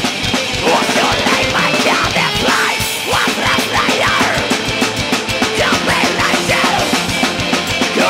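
A heavy metal band playing loud and live: electric guitar over fast, dense drumming.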